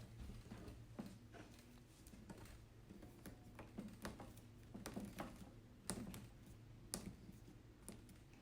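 Faint, irregular light clicks and taps of plastic parts being handled as a hose connector is fitted to the watering system, over a low steady hum.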